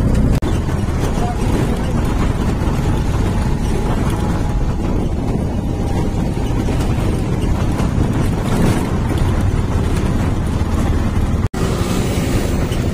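Auto-rickshaw's engine running and road and wind noise while riding in its open passenger compartment. The sound cuts out for an instant near the end.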